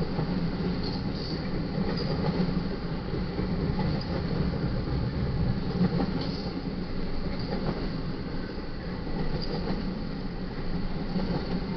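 Double-stack intermodal freight train rolling past at a steady pace: a continuous rumble of steel wheels on the rails, with brief high wheel squeals now and then.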